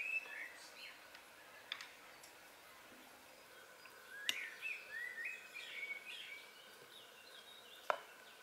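A songbird chirping in short twittering phrases, with three sharp clinks of forks against plates and the metal pan: about two seconds in, a little past four seconds, and near the end.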